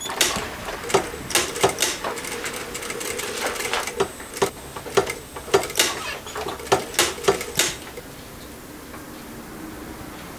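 Industrial sewing machine stitching fabric in short runs: a steady running hum broken by irregular sharp clicks and clacks for about eight seconds, then only a fainter steady hum.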